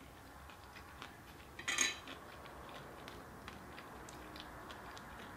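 Quiet eating with small mouth clicks and chewing, and one short clatter of plastic tableware, a fork or sauce cup against a takeout tray, about two seconds in.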